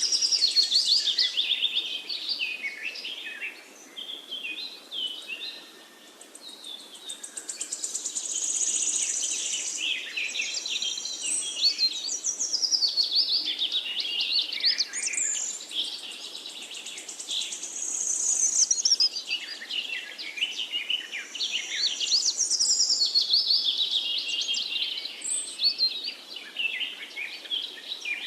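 Songbirds singing: a continuous chorus of quick chirps, trills and whistled phrases, some overlapping, over a faint steady background hiss.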